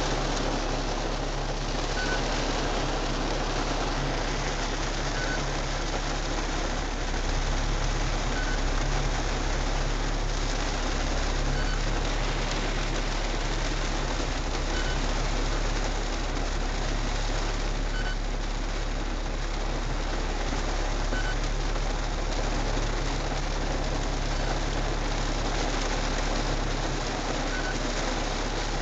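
Steady rain on a car's roof and windscreen, heard from inside the cabin over the low hum of the idling engine. A faint short beep repeats about every three seconds.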